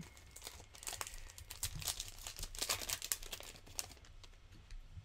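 Foil Pokémon trading card booster pack crinkling and tearing as it is handled and ripped open by hand, with dense crackling from about half a second in, easing off near the end.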